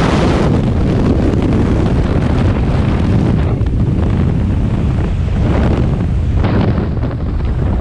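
Loud wind rushing and buffeting over the camera microphone in the aircraft's slipstream at an open jump door, dipping a little about six and a half seconds in.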